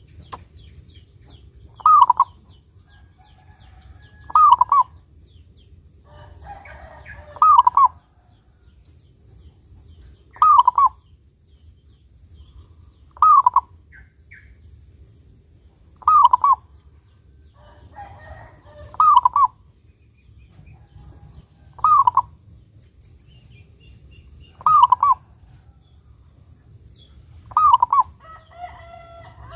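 Zebra dove (perkutut) singing its cooing song phrase over and over, about once every three seconds, ten times. Faint high chirps of other small birds come between the phrases.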